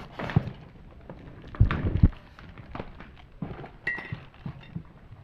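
Irregular knocks, clicks and thumps of a cardboard box and ceiling-fan parts being handled during unboxing, with a few heavier thumps about two seconds in.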